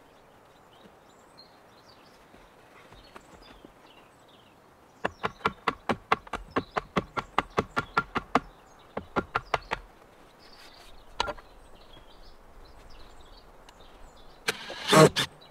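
Rapid run of about twenty sharp knocks, some six a second, each with a slight ringing tone, followed by a few more scattered knocks and one louder clatter near the end.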